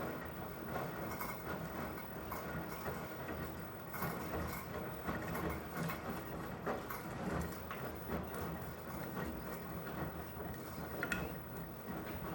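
Elin washing machine, a Beko-built entry-level model, running with a steady mechanical noise and scattered light clicks and ticks.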